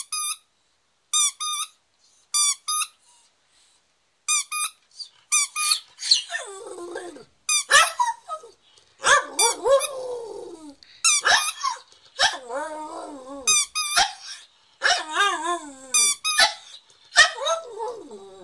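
A squeaky dog toy is squeezed in short high squeaks, often in pairs, and from about six seconds in a puggle answers with long howls that rise and fall, alternating with more squeaks.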